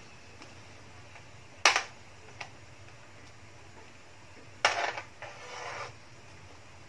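Spoon clanking sharply against a large aluminium wok twice, about two seconds in and near five seconds. The second clank runs into about a second of scraping as the spoon stirs through the coconut milk.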